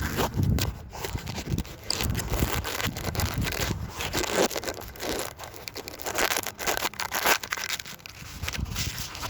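Gusty wind buffeting the microphone: an uneven low rumble with hissing surges that swell and drop every second or so.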